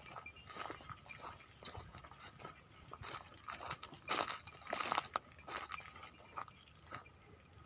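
Irregular crunching and rustling of dry fodder, loudest about four to five seconds in.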